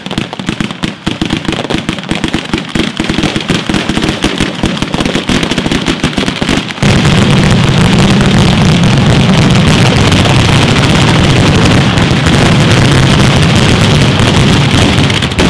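Italian ground firecracker battery (batteria) going off: a rapid, uneven chain of firecracker bangs. About seven seconds in it jumps louder into the closing barrage, with bangs so fast they merge into one continuous din.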